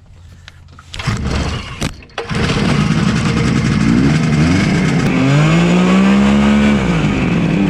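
Quicksilver ultralight's two-stroke aircraft engine being started on choke: it turns over in two short bursts, catches about two seconds in, then runs loudly while the throttle is worked, its pitch rising and falling several times.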